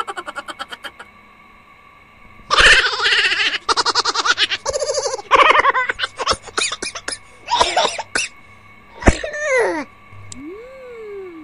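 Laughter sound effect over a music track: several bursts of loud, rapid laughing, the last one sliding down in pitch.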